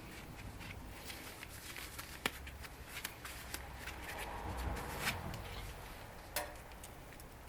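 Irregular rustling with small clicks and taps of objects being handled, with two sharper taps, one about two seconds in and one near the end.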